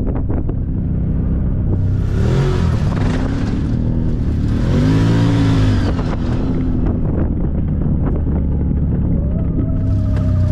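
Can-Am Maverick side-by-side's V-twin engine running under way through its CVT clutch, twice revving up and easing back off, with steady running in between.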